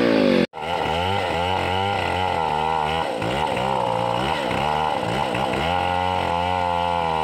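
Stihl two-stroke chainsaw engine running and being revved up and down over and over with the throttle. It drops out briefly about half a second in.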